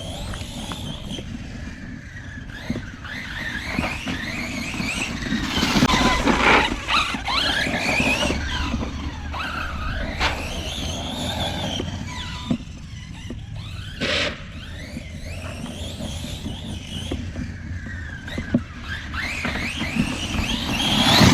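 Redcat Kaiju EXT RC truck driven hard, its brushless motor and drivetrain whining up and down in pitch as it accelerates and slows again and again. There are a few sharp knocks along the way.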